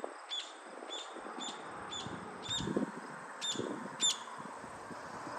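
A bird chirping: short high chirps about twice a second, stopping about four seconds in.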